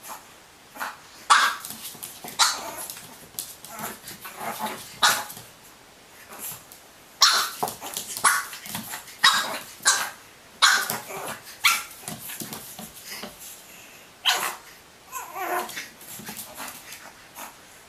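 Pug puppy barking at its own reflection in a mirror: short, sharp, high yaps in irregular bursts, with one longer cry that falls in pitch near the end.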